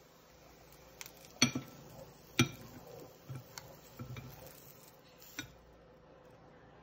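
Spatula knocking and scraping against a small frying pan and a bowl while scrambled eggs are transferred: a handful of short, sharp clicks and knocks, the two loudest about one and a half and two and a half seconds in, with lighter taps after.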